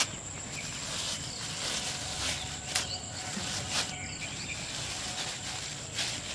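Handling sounds: a plastic bag rustled and worked over a plate, with a few sharp clicks, over a steady high-pitched insect drone.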